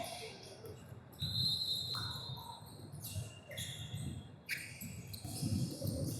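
Basketball bouncing on a gym floor during play, with irregular thumps and scattered sharp squeaks from the court.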